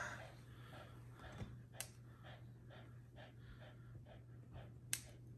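A dog panting faintly, about two breaths a second, with two sharp clicks of pet nail clippers cutting a small dog's nails.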